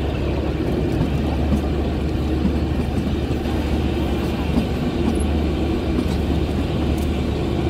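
Kalka–Shimla narrow-gauge train running, a steady, even rumble.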